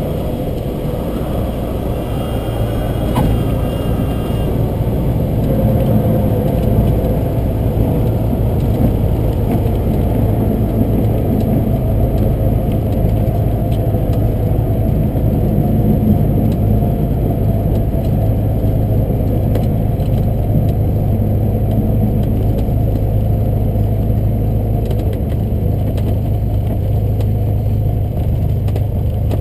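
Cessna 172's piston engine and propeller running at low power while the plane taxis, heard inside the cabin: a steady drone, a little louder from about four seconds in.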